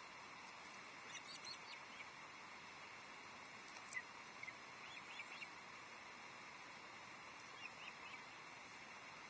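Faint steady outdoor hiss with a few brief, faint high bird chirps and a single sharp click about four seconds in.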